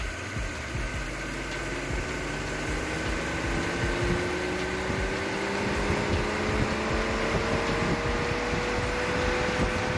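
Electric radiator cooling fan of a 2011 Mercedes-Benz E350 (W212) speeding up, with a whine that rises steadily in pitch and grows louder. It is stuck going to top speed whether the engine is hot or cold, which is a fault.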